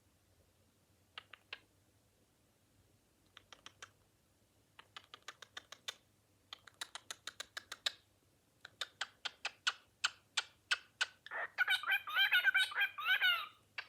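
Cockatiel making a run of sharp clicks. They start sparse, then speed up to about five a second and grow louder. About eleven seconds in they break into a loud, warbling chatter.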